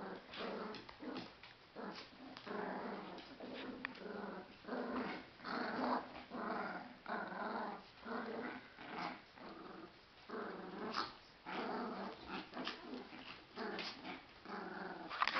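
West Highland white terrier puppies, about six weeks old, growling in short repeated bursts as they play-fight.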